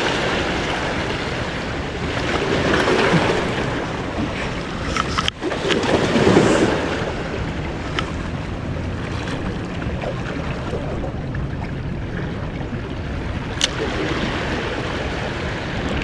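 Sea waves washing against breakwater rocks, with wind on the microphone. The wash swells twice, a few seconds apart, and there are a few faint sharp clicks.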